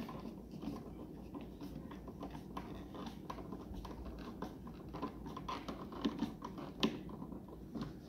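Screwdriver tightening a wire terminal screw on a Kasa smart light switch: a run of small irregular clicks and scrapes of metal and plastic, with one sharper click near the end.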